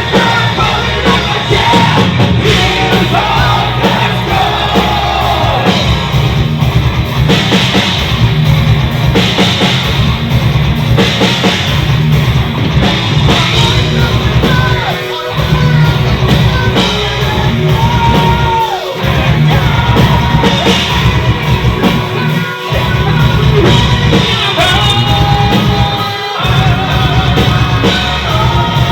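Heavy metal band playing live: drums and band with a singer holding long sung notes. The music breaks off briefly about four times.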